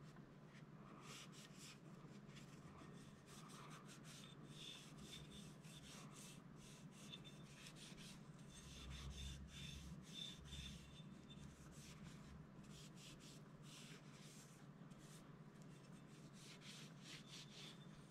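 Faint rubbing and scuffing of a cotton cleaning patch wiped along a Springfield XD(M) pistol slide, taking off excess oil, over a low steady hum.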